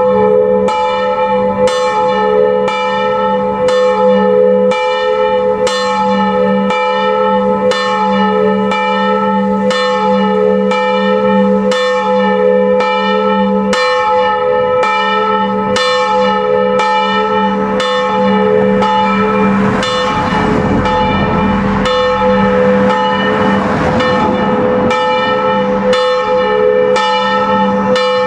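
Church tower bells swinging and ringing, with steady strokes about three every two seconds and the tones humming on between strokes. A rush of noise comes in under the ringing about twenty seconds in and fades a few seconds later.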